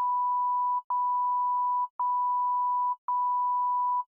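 Censor bleep: a single pure, mid-pitched steady tone in a string of beeps about a second long with short gaps between them, dubbed over the audio to blank out a phone number being read aloud.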